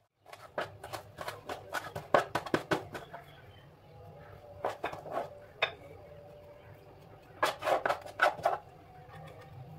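Kitchen knife chopping fresh coriander leaves on a plastic cutting board: quick runs of sharp taps, a fast stretch over the first three seconds, then shorter bursts about five seconds and seven and a half seconds in.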